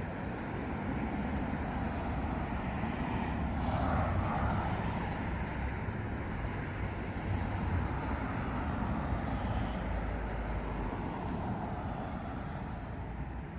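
A steady low rumble of vehicle engine noise, swelling briefly about four seconds in.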